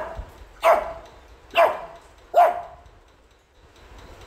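A Shih Tzu barking angrily: four sharp barks, one every second or so, in the first two and a half seconds, each dropping slightly in pitch.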